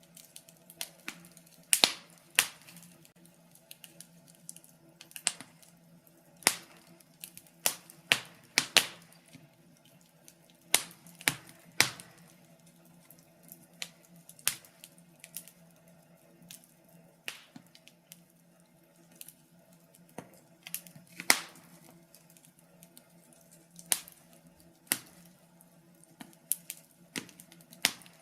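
Wood fire crackling in a fireplace: irregular sharp pops and snaps from the burning logs, a few a second with short lulls, over a faint steady low hum.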